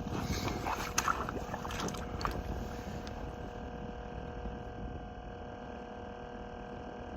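Low, steady rumble of outdoor wind on the microphone, with a faint steady hum and a few light clicks in the first couple of seconds.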